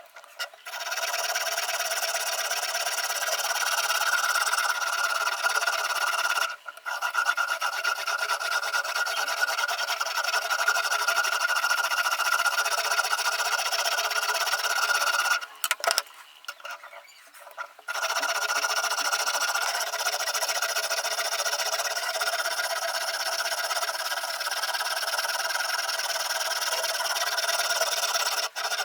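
Sharpening stone on a Ruixin Pro RX-008 guided sharpener scraping along the edge of a VG10 Damascus steel kitchen knife, a steady rasping grind that stops briefly about six seconds in and for about two seconds around the middle.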